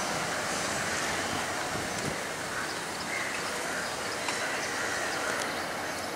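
Diesel locomotive engine running, heard from a distance as a steady even noise, with a few faint metallic clicks.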